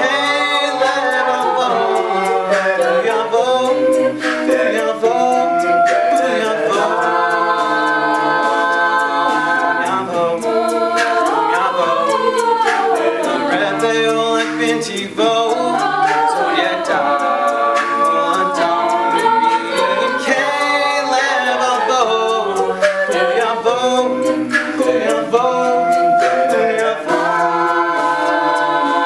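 Mixed men's and women's a cappella group singing a Hebrew pop song in close harmony, with vocal percussion clicking out a steady beat underneath.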